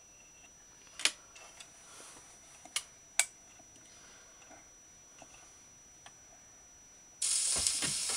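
Philips record player's automatic tone-arm mechanism clicking several times as the arm lifts and swings over the record. About seven seconds in, the stylus sets down with a soft thump and the steady hiss and crackle of the record's lead-in groove begins.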